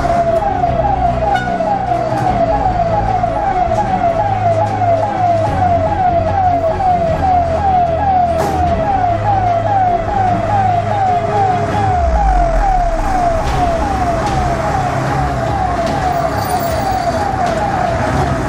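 Tata fire engine's electronic siren in a fast yelp, each cycle a quick falling sweep, about three a second, over the truck's engine running; the engine note deepens about twelve seconds in as the truck pulls away.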